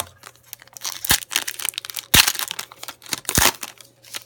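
Plastic-foil trading-card pack wrapper crinkling and tearing as a pack is opened and the cards handled, with three sharp snaps about a second apart.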